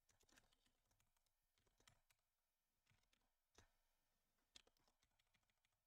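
Near silence with a handful of faint, irregular computer keyboard clicks as code is typed.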